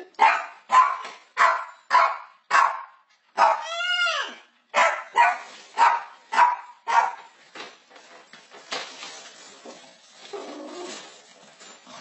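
A string of evenly paced dog-like barks, a little under two a second, with one drawn-out call rising and falling in pitch about four seconds in. The barking stops after about seven and a half seconds, leaving softer noise.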